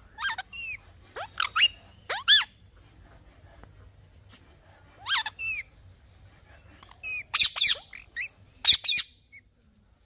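Rose-ringed parakeets (Indian ringnecks) calling: short, high calls that bend sharply up and down in pitch, in clusters of two or three, with a lull between about three and five seconds in and a quick run of calls near the end.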